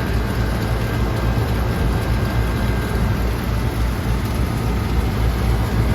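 Old Carrier rooftop unit running in cooling mode: compressor and condenser fan motor giving a steady low hum under an even rush of noise.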